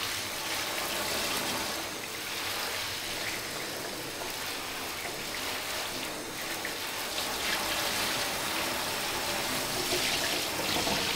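Shower running, steady spray of water falling into a bathtub and over potted cacti, drenching them through.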